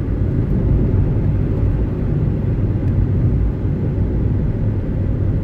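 Steady low rumble of a car driving along a paved road, heard from inside the cabin: engine and tyre noise with no sudden events.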